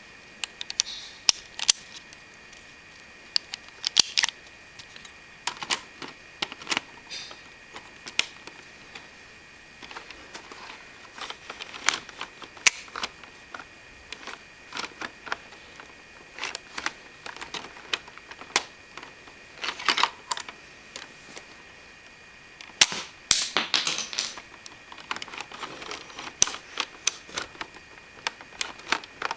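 Plastic clicks and snaps of a Lego Technic gun mechanism being worked by hand: irregular sharp clicks, with a quick rattle of clicks about 23 seconds in.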